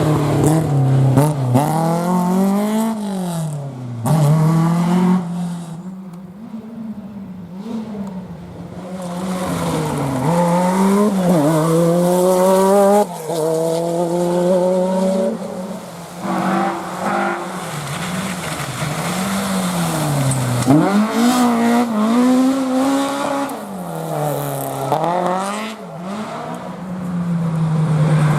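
Historic rally car engines revving hard through the gears, the pitch climbing and dropping again and again at each shift and lift, with a few abrupt breaks where one car's sound gives way to another's.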